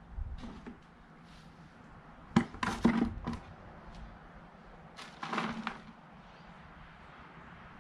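Digging by hand in garden soil while harvesting potatoes, heard as three short bursts of scraping and rustling, the middle one the loudest.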